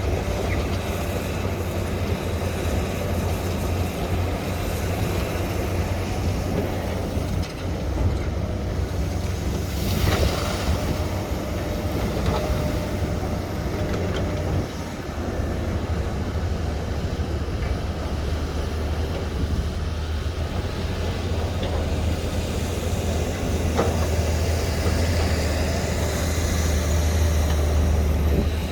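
SANY hydraulic excavator's diesel engine running steadily under working load with a low drone, getting a little louder near the end. A few knocks from the machine's bucket or tracks break through, the loudest about ten seconds in.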